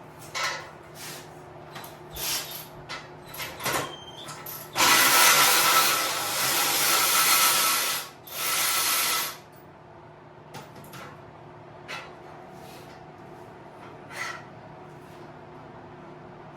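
Power tool with a 17 mm socket running in two bursts, a long one of about three seconds and a short one of about a second, to spin off a nut. A few clicks and knocks come first as the socket is fitted.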